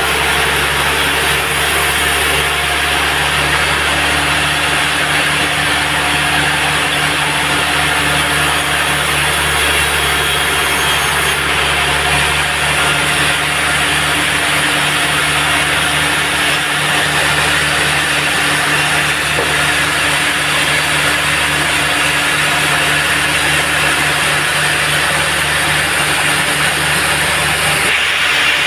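Band sawmill running and cutting a teak log: a steady, even sawing noise over the low hum of the mill's engine, with no pauses. The low hum changes slightly near the end.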